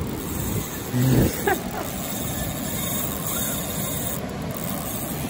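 Steady rush of ocean surf and wind on the microphone, with a brief voice-like sound about a second in.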